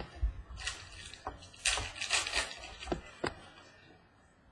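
Trading cards being handled: cards sliding and rustling against each other with a few light clicks and taps, including two short bursts of rustling about a second and two seconds in.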